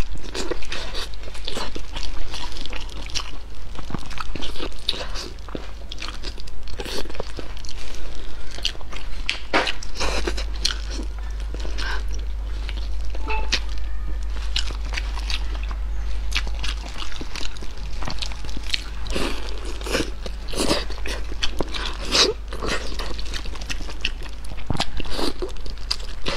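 Close-up eating sounds: a person biting, chewing and gnawing meat off braised pig tail, with irregular wet clicks throughout, over a low steady hum.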